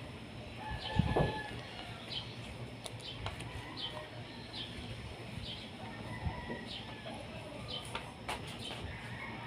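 Birds chirping and calling outdoors in short repeated calls, with a dull thump about a second in.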